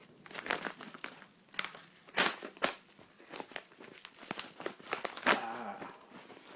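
Packaging crinkling and tearing as a mailed parcel is opened by hand, in irregular crackling strokes. The loudest rips come a little after two seconds in and again about five seconds in.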